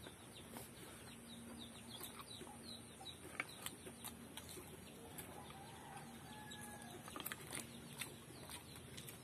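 Faint, rapid bird chirps throughout, with a few sharp clicks and soft wet sounds of raw oysters being pried from their shells by hand and eaten; the sharpest click comes about three and a half seconds in.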